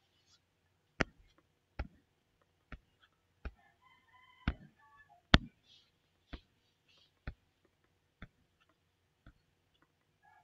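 Computer mouse scroll wheel clicking notch by notch, about once a second, with slightly uneven spacing. Faint pitched calls are heard around the middle.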